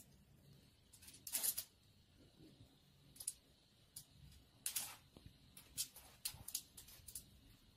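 Faint, irregular short scratches and scrapes, a cat's claws dragging on a wall as it clings and slides down.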